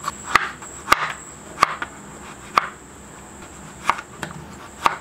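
Kitchen knife slicing a grapefruit into rounds, its blade knocking on a wooden cutting board with each cut: about seven sharp knocks, spaced half a second to a second apart.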